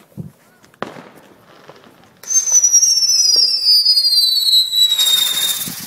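Lady Bug ground-spinner firework whistling loudly, a single tone that starts about two seconds in and slowly falls in pitch for three and a half seconds. A hissing crackle joins it in its last second.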